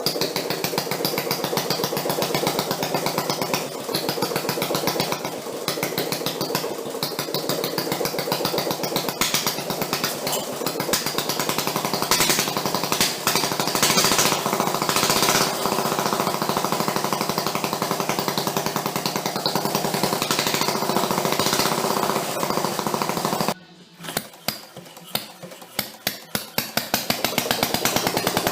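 Home-built engine made from a Quincy air compressor running fast and steady with rapid firing strokes. Near the end it suddenly cuts out and fires a handful of separate pops before picking back up to speed.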